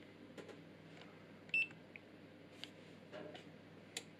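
UNI-T UT61B digital multimeter giving one short, high beep about one and a half seconds in, the key-press acknowledgement as its MAX/MIN button switches it into minimum-reading mode. A few faint clicks of button presses come before and after.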